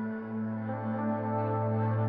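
Soft ambient background music of long held tones over a steady low drone.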